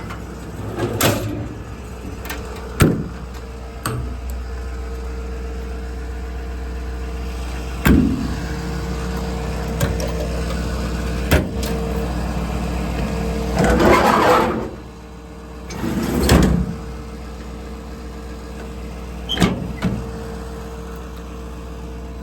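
An engine idling steadily, with a series of sharp knocks and clunks and two longer rattling, rushing noises about two-thirds of the way through.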